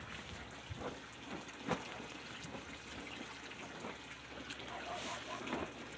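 Faint rustling and scattered soft knocks from a handheld phone being moved about, over a low steady background hiss.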